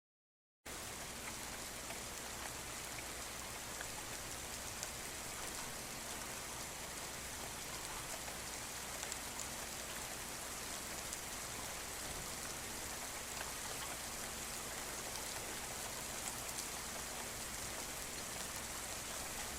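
Steady rain falling: a dense, even hiss with scattered small ticks of single drops. It cuts in abruptly just under a second in.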